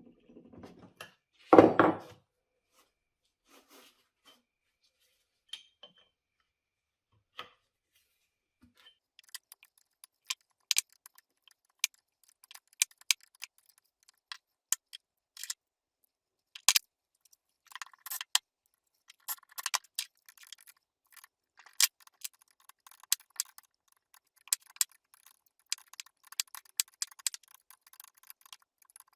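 Hand tools and small metal parts clicking and clinking irregularly during cylinder-head disassembly, with one louder clatter near the start.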